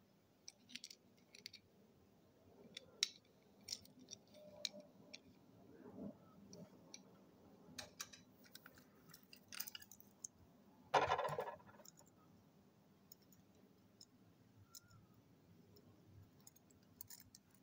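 Faint handling noise: scattered light clicks and taps as a small toy car is turned over in the fingers, with one louder brief rustling noise about eleven seconds in.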